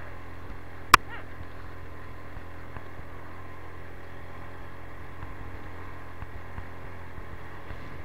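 Motorcycle engine running steadily at an even speed while riding, with one sharp click about a second in.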